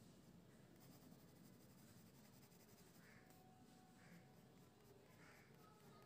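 Faint pencil strokes rubbing on drawing paper, with a few soft strokes in the second half, just above near-silent room tone.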